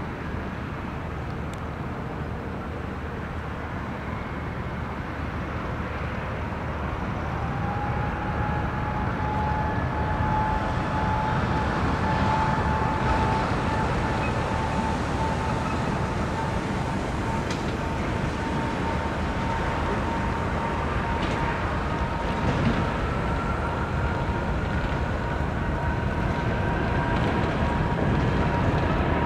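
Jet airliner engines with a steady rushing noise that slowly grows louder. A whine comes in about seven seconds in and creeps upward in pitch, and a second, higher whine rises near the end.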